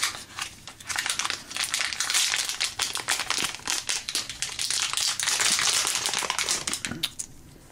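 Small plastic bag crinkling and crackling as it is handled in the hands. The crinkling is dense and irregular through most of the stretch and tails off near the end.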